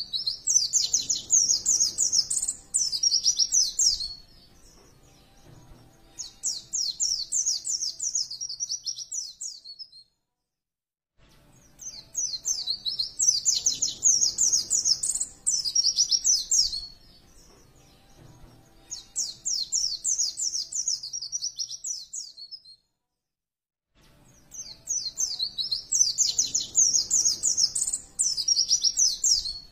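White-eye (pleci) song played as a training recording: rapid, high twittering phrases in bursts of a few seconds with short pauses between. The same passage repeats about every twelve seconds, a looped track.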